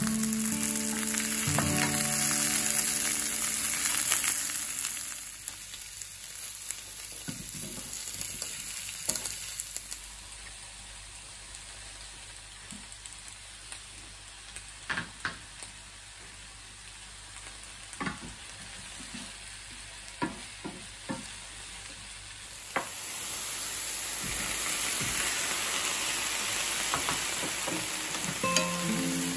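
Vegetables sizzling in olive oil in a frying pan. The sizzle is loud at first, softer through the middle with occasional light knocks, and louder again from about two-thirds of the way through.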